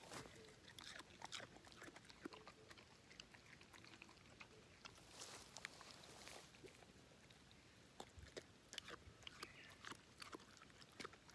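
An English setter chewing pieces of raw carrot: faint, irregular crunches and clicks of biting.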